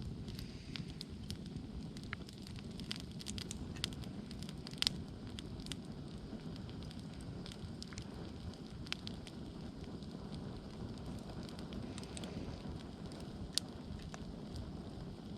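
Campfire burning: a steady low rumble of flames with scattered sharp crackles and pops from the wood, one louder pop about five seconds in and another near the end.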